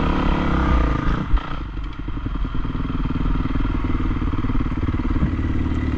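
Motocross bike engine heard close from the rider's helmet, running steadily; a thump about a second in, then the engine eases off briefly before running on evenly.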